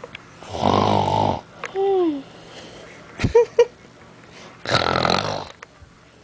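A person snoring: two long snores about four seconds apart, with a short falling squeak and a few clicks in between.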